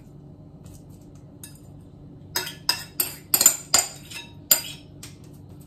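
A utensil knocking and scraping against a ceramic mixing bowl as dough is scraped out of it. After about two seconds of quiet, a quick run of roughly a dozen sharp clinks follows over the next two seconds.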